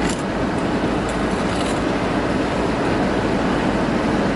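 Steady low rumble and hiss of vehicle road noise, with a couple of faint clicks near the start.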